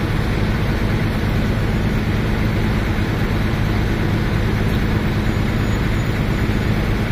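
Bus diesel engine idling steadily, a low, even hum.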